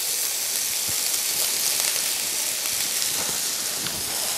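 Broccoli florets, leeks and broccoli stems sizzling steadily in hot margarine in a stainless-steel sauté pan as they are sautéed, with faint ticks of a spatula stirring.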